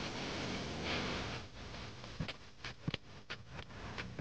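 A steady hiss, then from about a second and a half in a quick, uneven string of sharp cracks: shots from a 9mm AR-pattern carbine.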